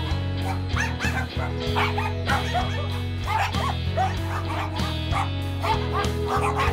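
Many dogs barking at once, short overlapping barks coming thick and fast, over background music of held low notes.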